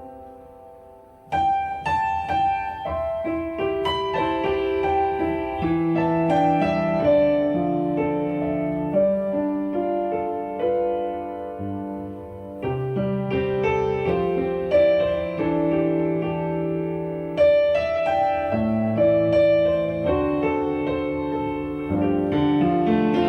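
Instrumental piano music played back through Eternal 8.3 three-way bookshelf speakers. A fading passage dies away, then a new piano passage starts suddenly about a second in and runs on with many notes.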